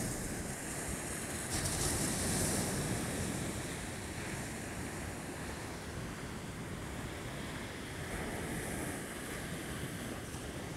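Small ocean waves washing onto a sandy beach in a steady hiss, swelling a little about two seconds in, with wind rumbling on the microphone.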